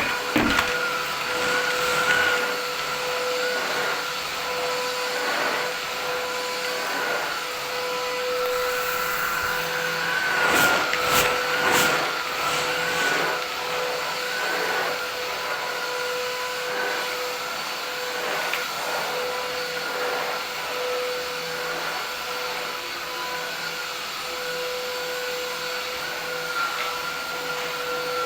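Philips 8000 series vacuum cleaner running steadily: a continuous rush of air under a high, slightly wavering motor whine. There are a few brief knocks about ten to twelve seconds in.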